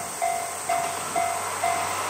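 Japanese level-crossing warning bell, an electronic ding ringing about twice a second (four dings here). Under it the running noise of an approaching diesel railcar grows louder toward the end.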